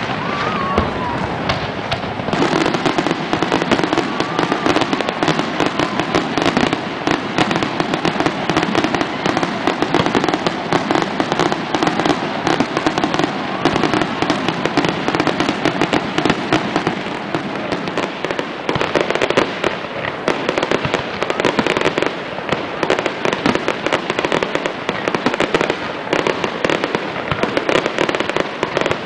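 Aerial fireworks display: shells bursting in quick succession, a dense, unbroken popping and crackling with no pauses.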